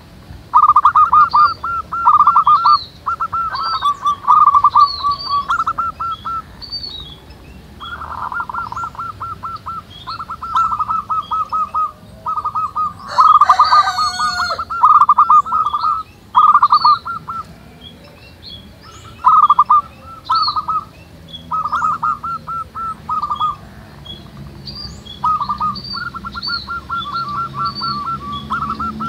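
Several zebra doves cooing over one another in repeated bursts of rapid staccato notes, with smaller birds chirping higher up and a louder call from another bird about halfway through.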